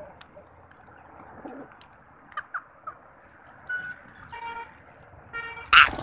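Birds feeding on scattered grain, rose-ringed parakeets and rock pigeons: a few short rising chirps, then a couple of nasal calls. A loud, sudden burst comes just before the end, close to the microphone.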